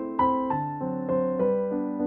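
Background music: a piano playing an even run of notes, about three a second.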